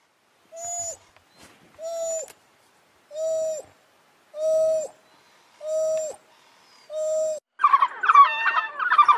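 An African wild dog calling: six short hooting calls, each steady in pitch and dropping at the end, about one every 1.3 seconds. About two thirds of the way in they give way to a loud burst of high, chattering twitter.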